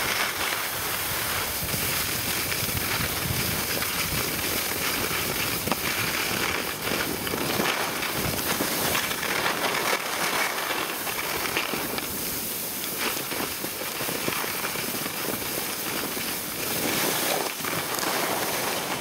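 Skis sliding and scraping over packed snow on a downhill run, with wind rushing over the microphone: a steady noise throughout.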